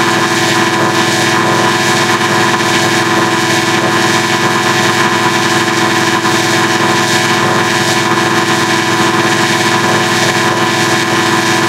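Animation logo audio mangled by stacked effects, a harmonic adder among them, into a loud, steady, distorted drone: many fixed tones over a hiss, with a fast flutter in the low end and no distinct events.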